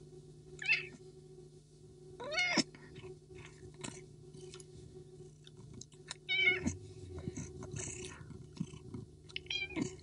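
Domestic cat meowing four times, short calls a few seconds apart, over a steady low purr, with faint clicks in between.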